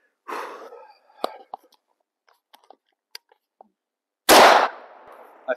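A .30-06 rifle firing a single shot about four seconds in: a sharp, loud crack that trails off over about a second. Before it there is a brief rustle and a few faint clicks.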